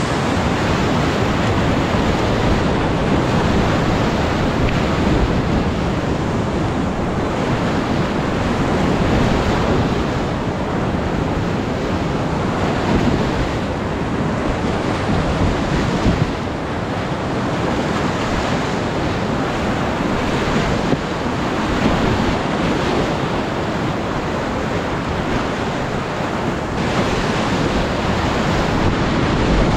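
Whitewater rapids at high water rushing steadily around a kayak, with water and wind buffeting the microphone.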